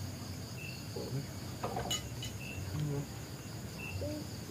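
Night-time chorus of crickets and other insects: a steady high trill, with short chirps now and then. A light clink of dishes comes about two seconds in.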